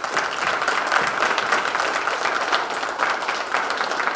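Audience applauding: many hands clapping at once, steady and loud.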